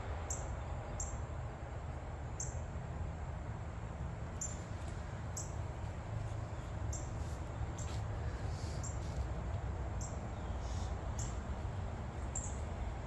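About a dozen short, very high chirps at uneven intervals over a steady low hum.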